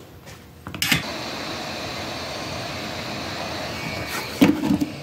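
Heat gun blowing steadily, a hiss of air with a faint high fan whine, switched on with a click a little under a second in, shrinking heat-shrink tubing over freshly soldered wire joints.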